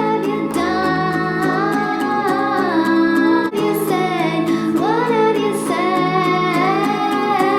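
Early home demo of a pop song: a female voice singing a slow, held melody over acoustic guitar chords.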